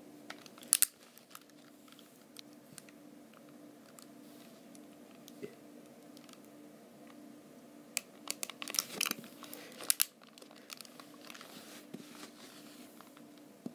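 Hard plastic clicks and rustling as a hand handles a Hasbro i-Cat robot cat toy, lifting its head and pressing its reset button with a pen. A sharp pair of clicks comes about a second in and a dense run of clicks and rustles about eight to ten seconds in, over a faint steady hum.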